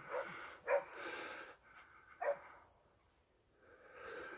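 Hunting dog barking: three short barks, two in quick succession and a third about a second and a half later.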